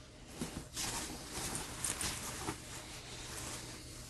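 Green synthetic shell fabric of a British Army Softie jacket and pants rustling and crinkling as it is handled, in a few short irregular swells.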